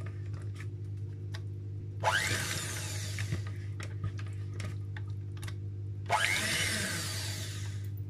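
Electric hand mixer running, its twin beaters churning chunks of butter with sweetened milk to make buttercream. The motor hums steadily, with louder, hissier stretches about two and six seconds in and a few light ticks early on.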